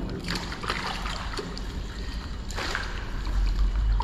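Water splashing and sloshing, with two louder splashes, one in the first second and one about two and a half seconds in, over a low rumble.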